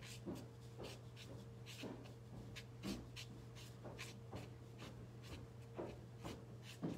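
Black ink pen scratching faintly across sketchbook paper in short strokes, about two a second, as a small rose is drawn.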